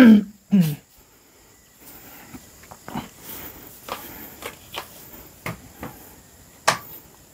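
Scattered light clicks and knocks of a folding chair's frame being handled while someone works out how to unfold it, with one louder click near the end.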